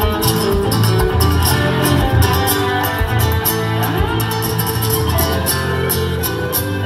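Acoustic guitar and electric guitar playing an instrumental passage together, plucked notes ringing over a steady bass line.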